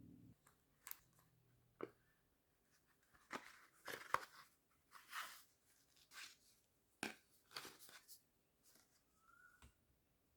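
Hands opening a Galaxy S22 Ultra's cardboard retail box: scattered taps and clicks with short scraping and rustling sounds of cardboard and packaging.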